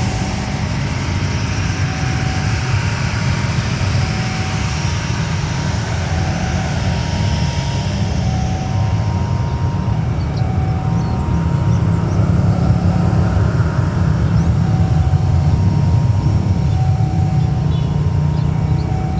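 Jet airliner engines running: a steady, loud rumble with a broad hiss that fades about eight seconds in.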